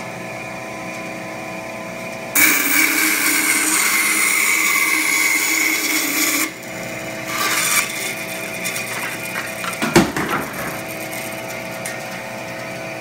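Craftsman 10-inch 21-400 benchtop bandsaw running with a steady hum. A couple of seconds in, the blade cuts through a 1x4 board with a loud cutting noise lasting about four seconds, then a shorter burst of cutting follows. A sharp knock comes about ten seconds in.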